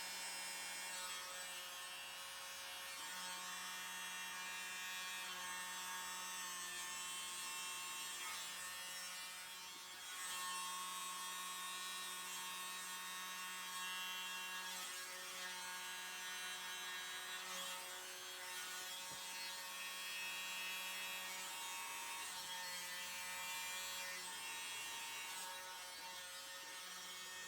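Small handheld electric blower running with a steady motor buzz, used to blow thinned acrylic paint across a canvas in a Dutch pour. The buzz dips briefly a few times.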